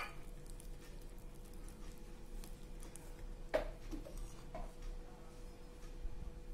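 Silicone spatula stirring thick cake batter in a glass bowl, soft and faint, with a few light clicks about three and a half seconds in as a steel spoon is picked up from a plate and used to scoop flour. A faint steady hum runs underneath.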